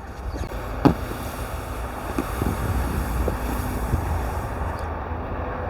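Wind buffeting the microphone, a steady low rumbling rush, with one sharp click about a second in.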